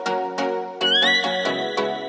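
Background music: an instrumental electronic pop passage with a steady beat. A little under a second in, a high whistle-like tone slides up and holds.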